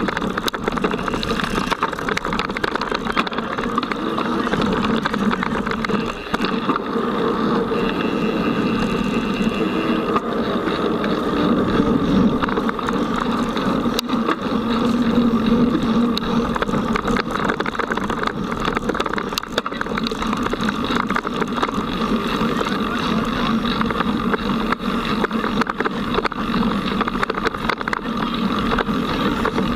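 Mountain bike ridden at race pace over a dirt and grass forest trail, heard from a camera mounted on the bike itself: steady rolling noise of the knobby tyres with many small clicks and rattles from the bike over the rough ground.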